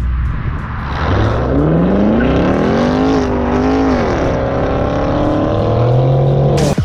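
Car engine accelerating hard, its pitch climbing, dropping at a gear change about four seconds in, then pulling again; it cuts off abruptly near the end.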